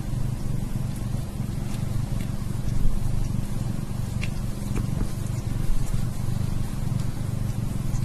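Mother cat purring steadily while nursing and grooming her kittens: a continuous low purr that swells and eases with each breath, with a few faint ticks as she licks.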